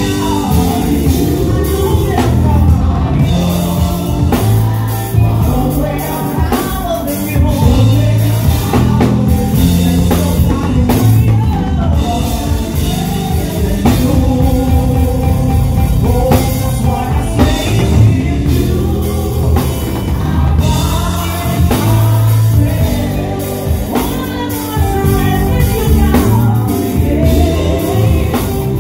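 Live band music: a drum kit with cymbals keeps the beat under guitar and keyboards, with a singing voice over the top.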